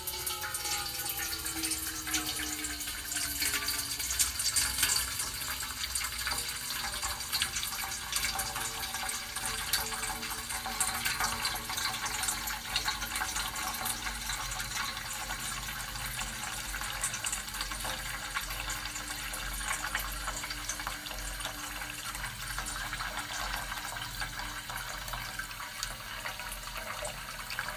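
Water poured steadily into a metal tin, a continuous splashing stream. A few faint ringing tones slide down in pitch during the first several seconds.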